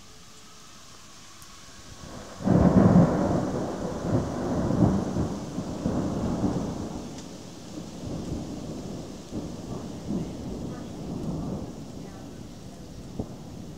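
Thunder: a sudden loud crack about two and a half seconds in, then a long rolling rumble that fades over about ten seconds.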